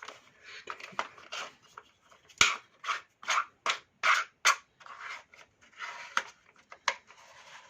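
Hand-work on chainsaw parts: a run of short, irregular scrapes and rubs broken by sharp clicks, with one sharper knock about two and a half seconds in.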